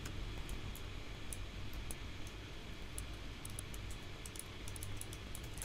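Irregular light clicks of a computer keyboard and mouse, a few a second, over a faint steady low hum.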